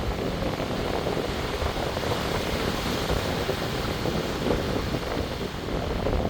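Sea waves surging and washing, with wind buffeting the microphone.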